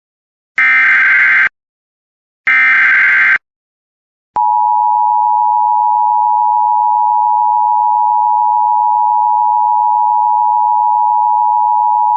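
Emergency Alert System SAME header data: two harsh, buzzy digital bursts of about a second each, coding the alert as an Emergency Action Termination. After a gap of about a second comes the EAS attention signal, a steady two-tone tone near 1 kHz held for about eight seconds and cut off suddenly near the end.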